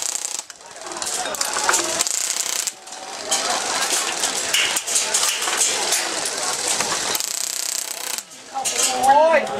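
Airsoft (BB) guns firing in rapid bursts: fast, ratchet-like clicking from the electric gearbox, in several stretches broken by short pauses.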